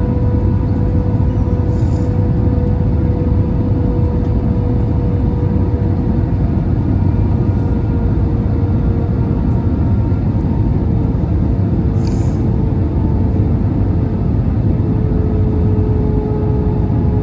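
Airbus A320 cabin noise: a loud, steady rumble of engines and airflow with a steady whine that drifts slightly in pitch.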